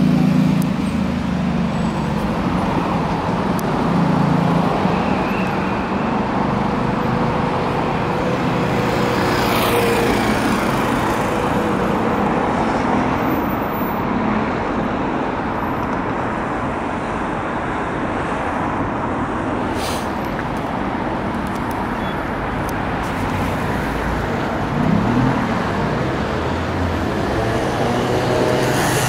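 Steady city road traffic: a continuous wash of cars and other vehicles running by.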